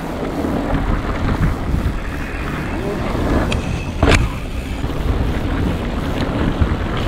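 Wind on the camera's microphone mixed with the tyres and frame of a Yeti SB165 mountain bike rolling over a dirt trail. A single sharp knock about four seconds in.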